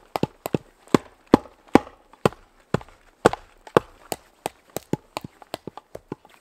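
A machete blade hacking repeatedly into a wooden post: a string of sharp chops about two or three a second, coming quicker in the second half.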